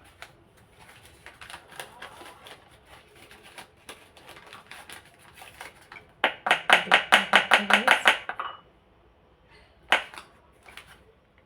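Kitchen utensil sounds on a worktop: light scraping and clicking, then a quick run of about fifteen sharp knocks in two seconds, and a single knock near the end.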